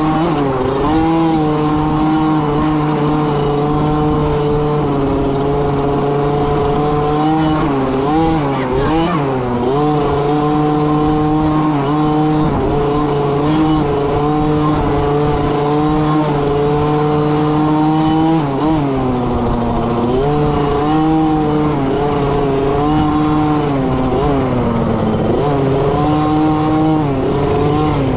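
Dirt bike engine running at speed, close up, mostly at a steady pitch. Three times the throttle rolls off and back on, so the pitch sags and climbs again.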